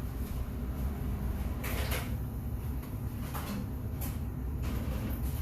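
Microwave door being opened and the broccoli dish taken out: a few short clunks and rustles over a steady low hum.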